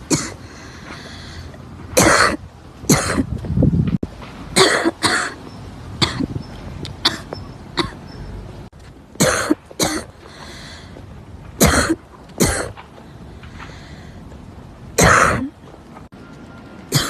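A girl coughing in repeated short bouts of one or two sharp coughs, about seven bouts spaced a few seconds apart.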